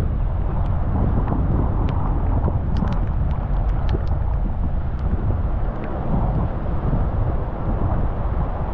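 Car driving on a rain-wet road: a steady low rumble of road and engine noise with tyre hiss, and a few faint ticks about two to four seconds in.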